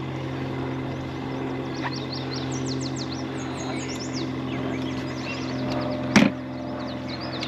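Birds chirping repeatedly in short, quick calls over a steady low boat-motor hum, with one loud sharp knock about six seconds in.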